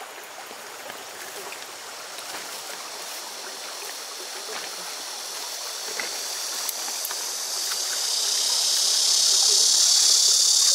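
Shallow stream water running, with small splashes and the rustle of wet grass and brush being handled at the water's edge. About two thirds of the way in, a steady high-pitched insect buzz swells up and becomes the loudest sound.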